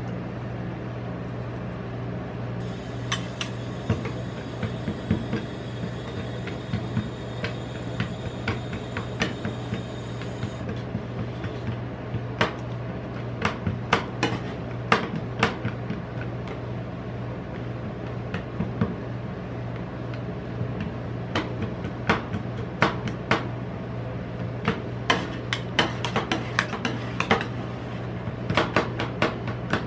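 Metal spatulas chopping and tapping on a stainless-steel ice cream roll cold plate, irregular sharp clicks that grow denser toward the end, over the steady low hum of the cold plate's refrigeration unit.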